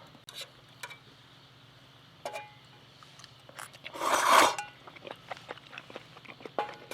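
Eating and tableware sounds: scattered small clicks, two light ringing clinks of a dish or cup, and a short loud breathy rush about four seconds in.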